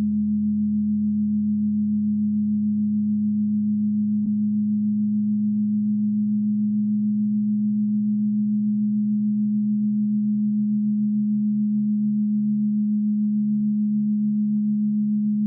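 Steady low electronic drone of pure sine-like tones, strongest near 200 Hz, with weaker lower tones that begin to pulse in the second half.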